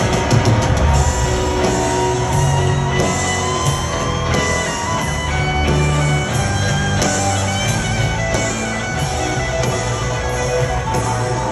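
Live rock band in a stadium, a lead electric guitar playing a solo line of long held notes over the band's bass and drums.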